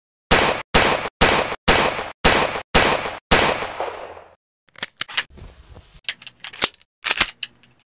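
Colt M1911 .45 pistol firing seven shots, about two a second, with the last one's echo dying away. This is followed by a run of quieter metallic clicks and clacks of the pistol being reloaded.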